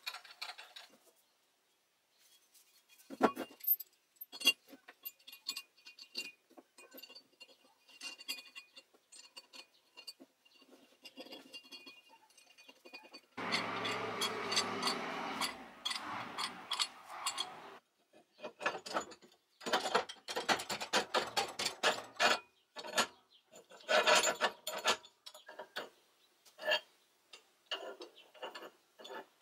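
Steel parts of a homemade drill press vise clinking and clicking as they are handled and fitted together, with two sharp metal knocks a few seconds in. About halfway through comes a few seconds of steady scraping as the steel vise body is moved over the wooden workbench.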